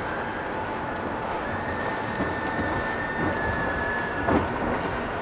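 Three supercharged Mercury Racing 450R V8 outboards running flat out at about 6,400 RPM, mixed with the rush of wind and water of a boat at high speed. A thin steady whine joins about a second and a half in and fades a little after four seconds, and there is a thump near the same point.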